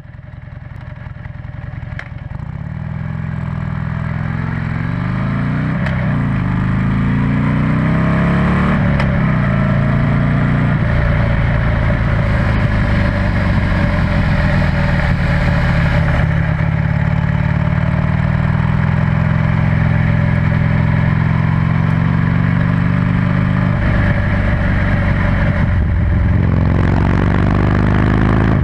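Buell XB9SX's air-cooled V-twin under way: revs rise and drop several times as it pulls through the gears, then it runs at fairly steady speed. It is first heard through the original exhaust, then through a Penzl aftermarket exhaust with its flap closed.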